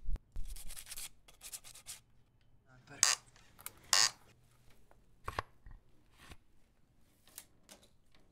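Hand woodworking on a small wooden piece: a hand tool scrapes along the wood's edge in quick strokes, then two sharp knocks about a second apart, followed by a few lighter clicks.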